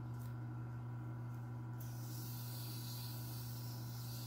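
Harbor Freight Central Machinery 10" x 18" mini wood lathe running with a steady electric motor hum. About two seconds in, a steady high hiss joins it.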